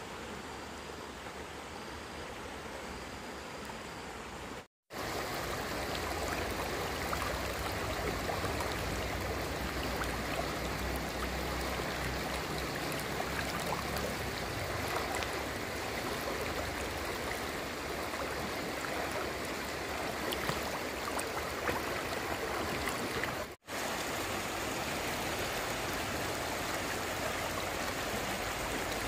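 Stream water flowing steadily, with fine splashy crackle through it. It is quieter for the first few seconds, and the sound cuts out completely twice, briefly.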